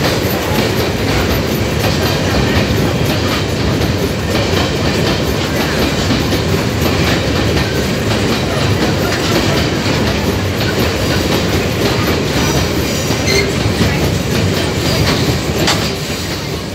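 Empty steel GDU gondola ore wagons rolling past close by, their wheels running over the track in a steady, loud rolling clatter.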